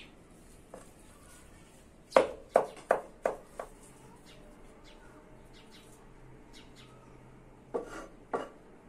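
Meat cleaver chopping raw chicken breast into mince on a wooden board: five quick strikes a couple of seconds in, then two more near the end.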